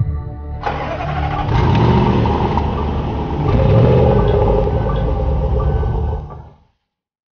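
Range Rover Sport SVR's supercharged V8 running hard under acceleration. It comes in abruptly under a second in, swells louder twice, and dies away quickly near the end.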